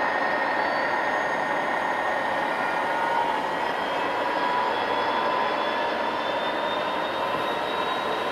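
MTH model freight train of diesel locomotives running steadily along the track: a continuous rolling noise of wheels and drive motors mixed with the locomotives' onboard diesel sound effects, with a few high whining tones that drift slowly in pitch.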